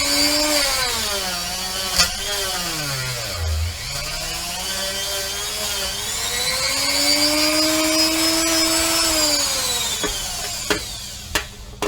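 Handheld rotary tool with a buffing wheel polishing a pewter cast: a high motor whine that rises and falls in pitch as the wheel is pressed on and eased off the metal. It winds down near the end, with a couple of sharp knocks.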